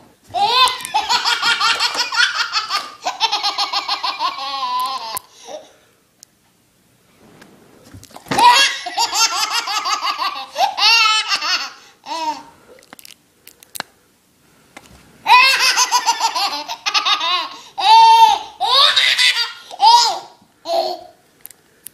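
Baby laughing hysterically in three long fits of rapid, high-pitched belly laughs, with short pauses for breath between them.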